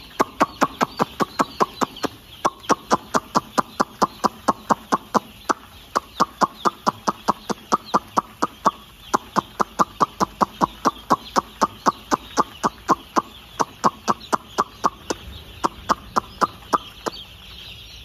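A person calling chicks with short, sharp mouth calls repeated about four to five times a second in runs broken by brief pauses, stopping shortly before the end. Underneath, a shed full of two-day-old chicks peeps steadily.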